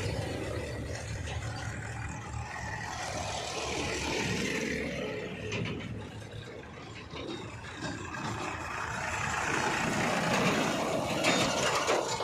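Heavy diesel machinery engine running steadily, its note rising and easing under changing load, with a few clanks near the end.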